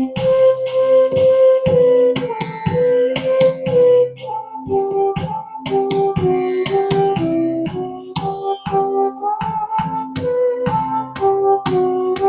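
Yamaha PSR-I510 arranger keyboard playing its built-in Carnatic Geetam song demo: a lead melody over a steady low drone, with rapid drum strokes throughout.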